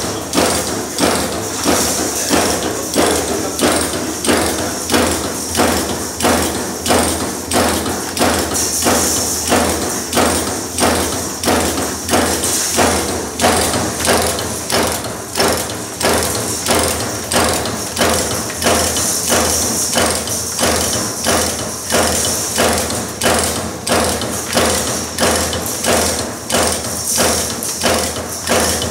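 Concertina razor-wire machine's punch press stamping barbed tape, a steady, even rhythm of heavy metallic strikes about once a second over a constant high hiss.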